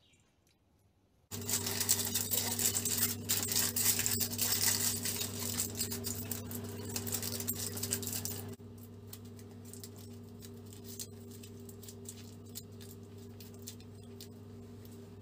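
Aluminium foil crinkling and being squeezed tightly onto the tip of a meat spit as a stopper. The crackle starts suddenly, thins to quieter scattered crinkles about halfway through, and has a steady low hum under it.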